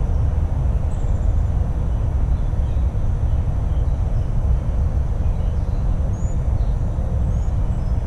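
Outdoor garden ambience: a steady low rumble with a few faint, high, short bird chirps scattered through it.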